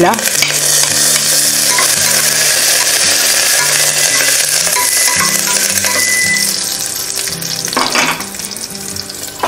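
Green chillies and curry leaves sizzling hard in hot coconut oil in a pressure cooker as they are stirred with a spoon. The sizzle eases off after about seven seconds, and a spoon knocks on the pan near the end.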